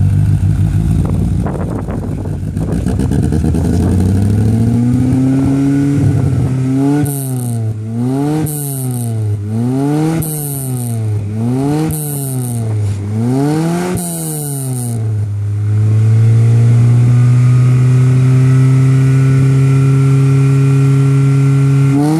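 Honda Accord petrol engine being revved during a decarbonising treatment, with cleaner fed into the intake manifold to burn off carbon deposits. Its speed climbs, then rises and falls in about five quick blips, with a short hiss at each peak, before it is held at a steady high idle for the last several seconds.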